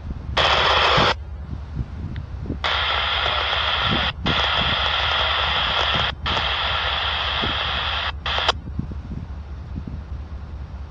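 Radio giving off bursts of hissing static that switch on and off abruptly: one short burst, then three of about one and a half to two seconds in quick succession, and a brief one near the end.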